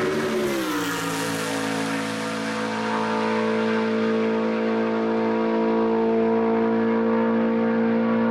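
BMW Z4 GT3 race car's V8 engine passing close by, its note dropping in pitch about half a second in, then holding a steady pitch as the car pulls away.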